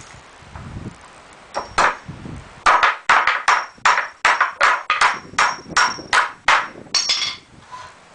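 Hand hammer driving nails into pallet wood: two blows about a second and a half in, then a steady run of about fifteen blows at roughly three a second, some with a short metallic ring, stopping near the end.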